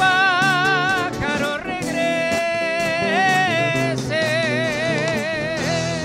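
Live band playing a Spanish-language folk song: a man's voice holds long sung notes with a wavering vibrato over acoustic guitar, electric bass and drums.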